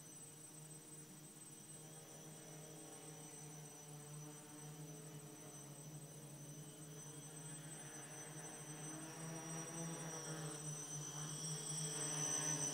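Quadcopter motors and propellers humming steadily, getting gradually louder with the pitch wavering in the second half, along with a steady thin high whine.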